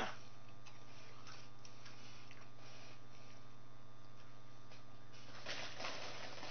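Faint chewing of potato chips, a few soft ticks, over a steady low electrical hum; near the end a brief rustle of the plastic chip bag as a hand goes into it.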